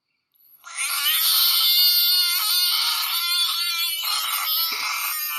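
An animal's long, high-pitched wailing call, starting about half a second in and held for about five seconds with a few brief breaks.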